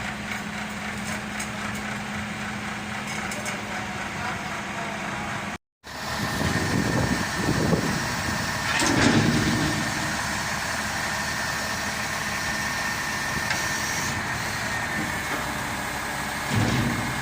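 Heavy lorry diesel engine idling steadily. After a brief dropout, the engine revs rise and fall twice, and a steady high-pitched whine runs on alongside the engine.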